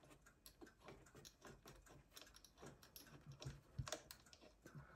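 Faint, irregular clicks and taps of a screwdriver and hands working at the screws of a Sony TC-355 reel-to-reel tape recorder's cover, the loudest about four seconds in.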